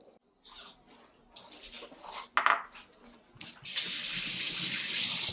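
Kitchen sounds: a few small knocks and a ringing clink of a dish or utensil, then a kitchen tap turned on and running steadily into the sink.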